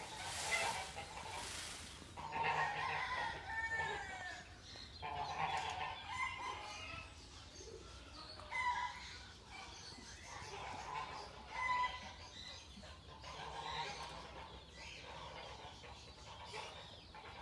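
Domestic fowl calling again and again, short calls every second or two. There is a brief rushing noise near the start.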